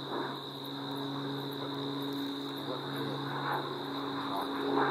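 Propeller-driven air tanker's engines running with a steady hum.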